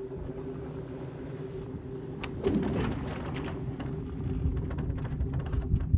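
A surfacing whale's blow: a loud breathy whoosh of air about two and a half seconds in, heard over a steady low hum.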